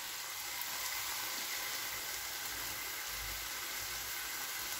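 Mushrooms sizzling steadily in a kadai on the stove, an even hiss.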